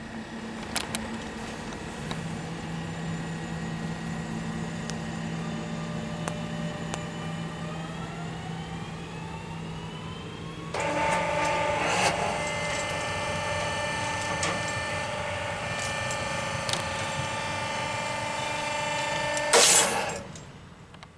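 Electric multiple unit pulling away, its traction motors whining and rising in pitch. About ten seconds in, a level crossing's warning bell starts ringing steadily while the barrier lowers, ending in a brief louder burst near the end.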